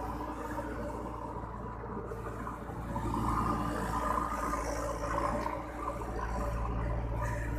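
A heavy diesel engine idling steadily, a low hum with a steady whine over it, a little louder from about three seconds in.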